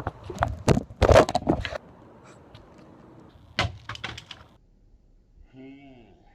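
Knocks and rattling clatter of a scuffle over a handheld camcorder, loudest about a second in, with a couple more knocks midway and a short vocal sound near the end.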